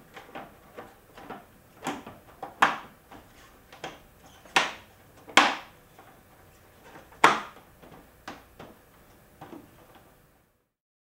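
Plastic tank cover panel of a BMW R1200RT being handled and pressed back into place: a run of knocks and clicks, with four louder clunks in the middle of the run.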